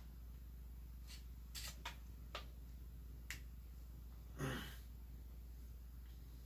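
Light metallic clicks from the Commando Mark 45 carbine being handled during teardown, several in the first three and a half seconds, then a brief scrape about four and a half seconds in.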